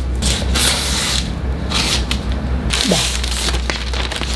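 Scissors cutting open a plastic mailer bag, the plastic crinkling and rustling in a few bursts as it is handled, over a steady low hum.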